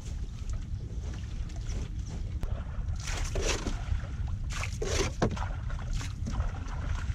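Cast net being worked over water hyacinth: rustling and splashing of net, leaves and water in two short bursts, about three and five seconds in, over a steady low rumble.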